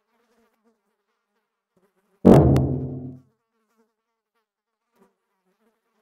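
Faint fly buzzing, broken about two seconds in by one loud impact with a sharp second click just after it, ringing low for about a second as it dies away.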